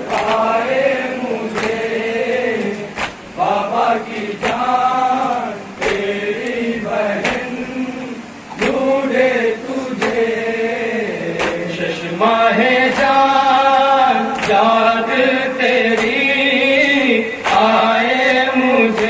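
A group of men chanting an Urdu noha (mourning lament) in unison. Sharp, evenly paced chest-beating (matam) slaps keep the beat, about one every second and a half.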